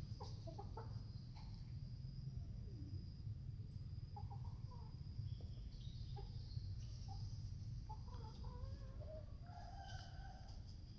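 Chickens clucking faintly, a scatter of short calls mostly in the second half, over a steady low hum.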